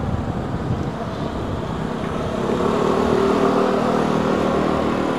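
Motor scooter engine running as it pulls across close by, its steady hum growing a little louder about halfway through, over general street traffic noise.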